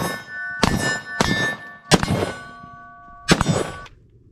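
A run of four sharp metallic clangs, each ringing on with several bell-like tones, then cut off abruptly near the end.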